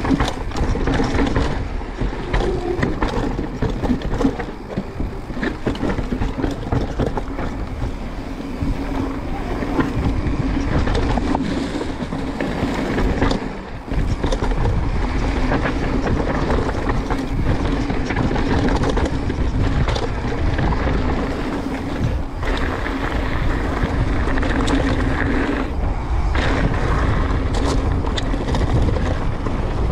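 Transition Sentinel mountain bike ridden down a trail: wind rushing over the microphone, with tyres rolling over dirt and many short knocks and rattles from the bike over bumps. A steady low hum joins in about halfway through and fades near the end.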